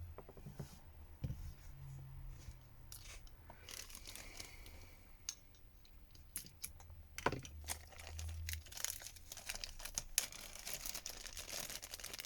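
Crinkling, light tearing and small clicks as smartphone parts are handled and worked apart by hand, busiest in the second half.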